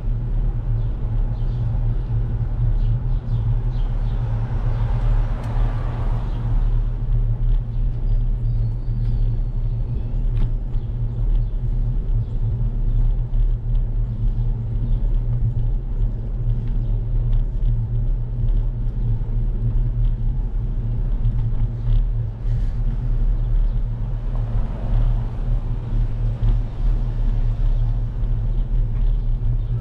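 Steady low rumble of wind buffeting and road vibration on a bicycle-mounted action camera while riding along a street. A louder hiss swells briefly twice, a few seconds in and again near the end.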